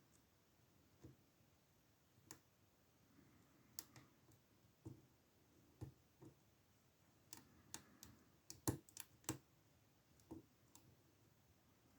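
Faint, irregular metal clicks and ticks of lock picks and a tension wrench working the pins inside an old Ruko padlock, with a quick cluster of clicks about three-quarters of the way through.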